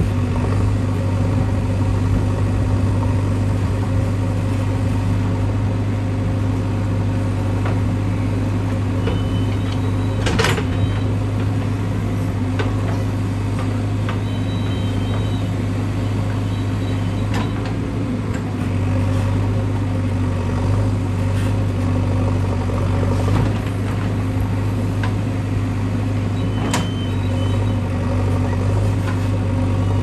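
JCB 3DX backhoe loader's diesel engine running steadily as the backhoe arm works, with a few sharp knocks, the clearest about ten seconds in and again near the end.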